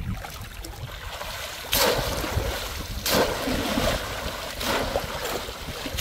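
Bamboo polo fish trap plunged down into the shallow water of a flooded paddy again and again, a splash about every second and a half.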